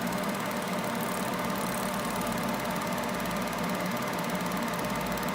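Laser separating machine running on a phone's back glass: a steady machine hum with a fine, very rapid buzz over it and no change throughout.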